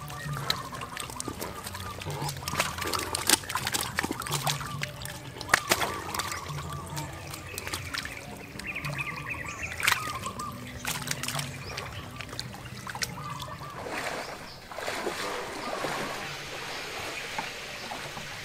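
Water and mud splashing and sloshing, with many sharp wet slaps and clicks, as hands work through shallow muddy water catching fish.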